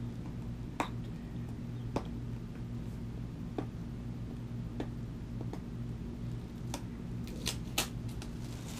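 Scattered light clicks and taps from a cardboard product box being handled and its seal worked at, about one a second, with a quicker run of sharper clicks near the end. A steady low hum runs underneath.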